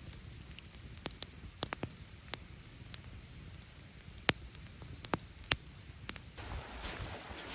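Campfire crackling: sharp, irregular pops over a low steady hiss, with the background noise growing louder about six seconds in.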